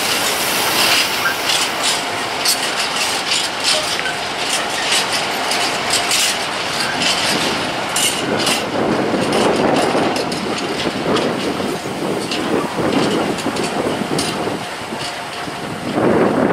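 A freight train of high-sided open coal wagons rolling past: steady rumble and rattle of wheels on rails, with many short clicks and clanks.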